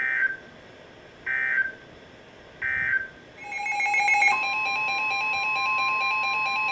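Three short end-of-message data bursts of Emergency Alert System (SAME) digital warbling, about a second and a half apart, then a brief jumble of tones giving way to the steady 1050 Hz NOAA Weather Radio warning alarm tone, which announces the next alert.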